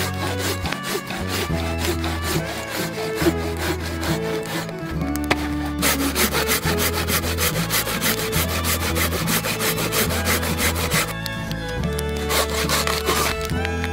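Hand pruning saw cutting through a dead log in rapid back-and-forth strokes. The strokes come faster and louder from about six seconds in until about eleven seconds.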